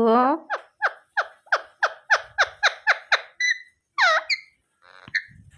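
Pet parrot calling in a quick run of about ten short, squeaky chirps, each dropping sharply in pitch, about three a second, then a few separate higher calls near the end.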